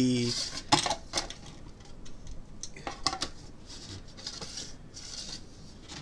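Plastic top piece of a cool-mist humidifier being turned and shifted on its body: scattered light plastic clicks and short rubbing scrapes of plastic on plastic.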